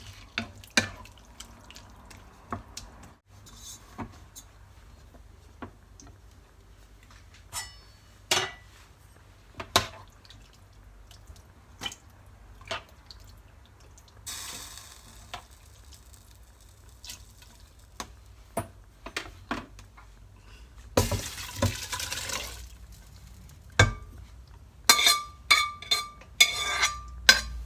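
Utensil clinking and knocking against a cooking pot while a stock cube is stirred into the pot's contents, with scattered knocks, two short noisy rushes partway through, and a quick run of ringing clinks near the end.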